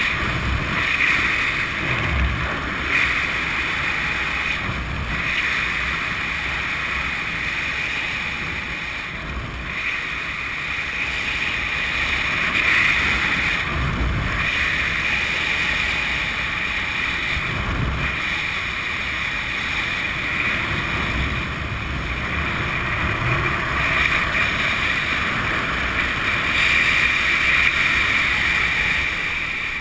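Airflow rushing over a helmet camera's microphone during a parachute descent under an open canopy: a steady hiss with occasional low buffets.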